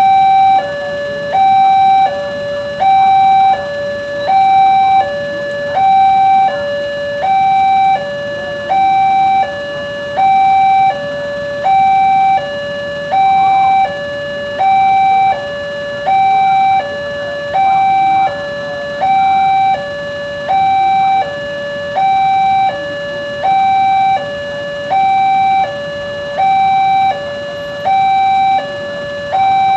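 Railroad crossing warning signal sounding continuously: an electronic two-tone alarm alternating steadily between a higher and a lower tone, about one high-low pair every second and a half, warning that a train is approaching and the barrier is down.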